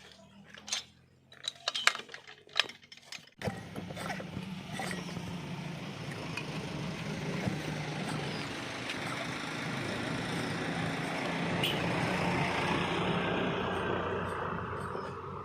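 Stihl 070 AV chainsaw's two-stroke engine catching about three seconds in after a few sharp knocks, then running steadily, swelling a little louder before easing off near the end. It runs smoothly, its broken internal fuel line now replaced.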